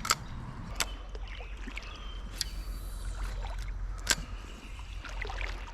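Shallow creek water sloshing and splashing, over a low steady rumble, with four sharp clicks or knocks.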